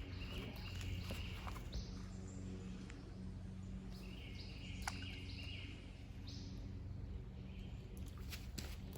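A bird singing a buzzy, stepped phrase that recurs about every four to five seconds, faint over a steady low hum of outdoor background.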